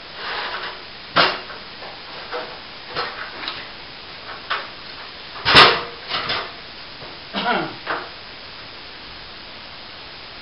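Irregular knocks, clatters and scrapes of hard objects being handled, the loudest a sharp knock a little past halfway, over a steady hiss.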